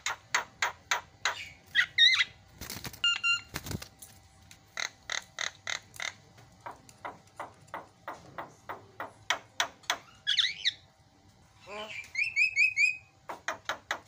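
Javan myna singing: rapid runs of short, sharp chattering notes, about four or five a second, broken by a few loud clicks, a rising whistled glide and a quick string of short whistles near the end.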